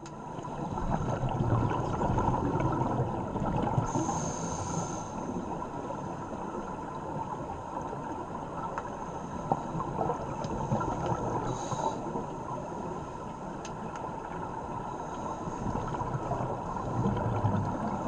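Scuba divers' regulators heard underwater: a steady crackle and gurgle of exhaled bubbles, with a short hiss of an inhalation about four seconds in and again about twelve seconds in.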